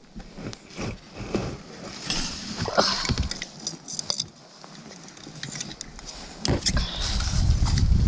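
Scattered knocks, clicks and rustles of a pike float rig and its line being handled from an inflatable kayak among reeds. Near the end, a louder low rumble of water and the kayak's hull as the paddle is taken up.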